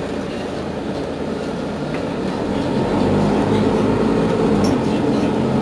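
Mercedes-Benz Citaro G articulated bus's engine running on the move, heard from inside the cabin, growing louder about halfway through as it pulls harder.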